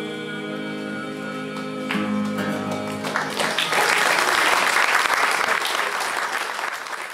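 A bluegrass band of banjo, acoustic guitars, mandolin and upright bass holds a ringing final chord. About three seconds in, audience applause takes over and then fades out.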